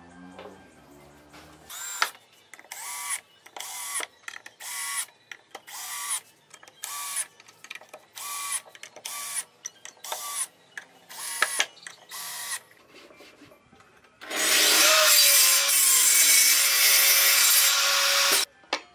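Cordless drill driving screws into wood in about a dozen short bursts, each spinning up briefly. Then a table saw runs loudly for about four seconds and cuts off suddenly.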